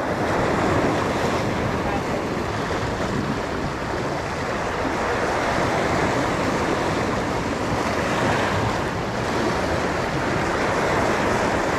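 Surf washing and breaking over shoreline rocks in a steady rush, with wind buffeting the microphone.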